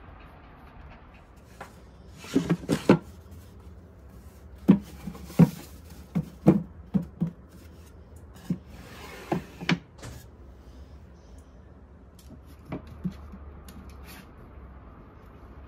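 Sharp wooden knocks and clatter, about a dozen over several seconds, as a small wooden step stool with drawers is handled and set down on a tile floor. A couple of fainter taps follow near the end.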